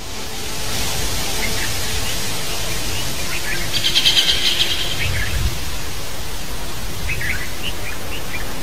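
Steady outdoor hiss with a few short bird chirps scattered through it and a brief buzzy trill about four seconds in.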